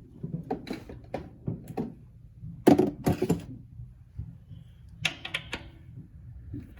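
Scattered clicks and knocks of hands working the compressor's crankcase drain plug loose, with a cut-down plastic jug held beneath it to catch the oil. A cluster of sharper knocks comes about three seconds in and another about five seconds in, over a faint steady hum.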